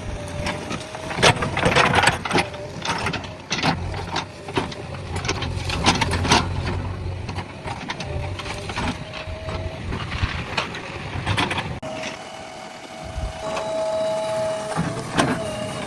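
JCB backhoe loader's diesel engine working, with frequent sharp clanks and knocks from the machine at work and a steady whine in the second half.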